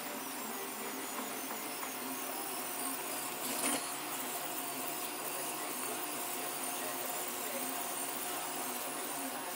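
Delta 3D printer running: a steady mechanical whir with a few faint steady tones, and one short louder noise about three and a half seconds in.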